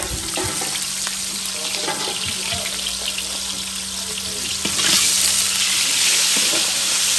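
Sliced onions sizzling in hot oil in a large pan, stirred with a spatula: the first step of a Creole fish curry. The sizzle grows louder about five seconds in.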